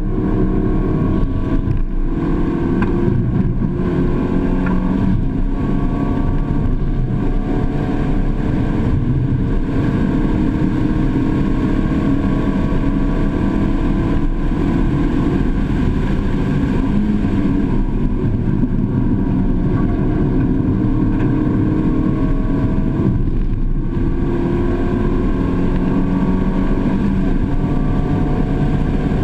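Mazda2's 1.5-litre four-cylinder engine pulling hard at high revs, pitch climbing in long sweeps with a few brief lifts, heard inside the cabin over wind and tyre noise.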